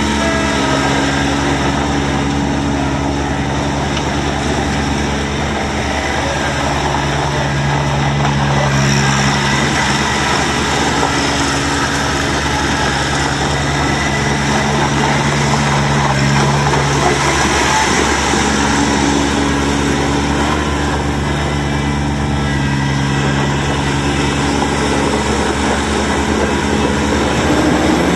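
Kubota BX22 compact tractor's 22 hp three-cylinder diesel engine running steadily, its note shifting in pitch a few times as engine speed rises and falls.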